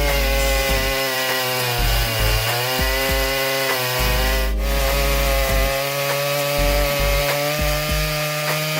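Two-stroke chainsaw running at high revs while cutting through a tree trunk. Its pitch sags about two seconds in as the chain loads up in the cut, then recovers and holds steady.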